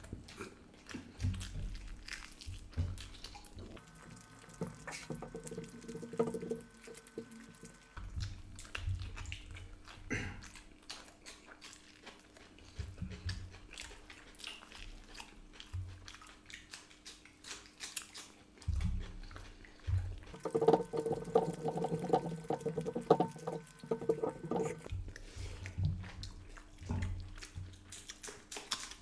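Close-miked eating sounds: chewing, lip smacking and wet squishing as mutton curry and rice are eaten and mixed by hand, with meat pulled from a leg bone. Twice, a short clip of music of about four seconds plays over it, a few seconds in and again past the middle.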